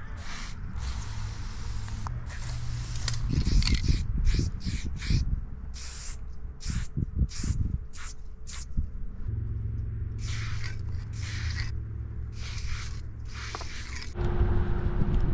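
Aerosol spray paint can hissing in a quick series of short bursts with brief gaps between, as paint is sprayed onto a wall. A low rumble runs underneath.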